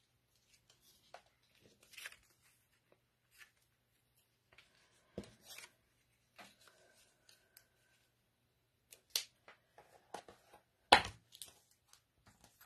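Paper and cardstock pieces being handled and slid about on a tabletop: light intermittent rustles and small clicks, with a sharper knock about eleven seconds in, the loudest sound.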